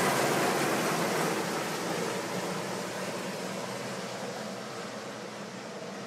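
Yellow Westland Sea King search-and-rescue helicopter flying away. Its rotor and turbine noise fades steadily as it moves off.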